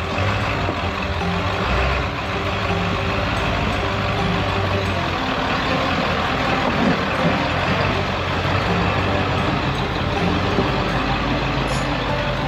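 Off-road truck engine running under load as it crawls the rocks, its note shifting up and down over a steady hiss.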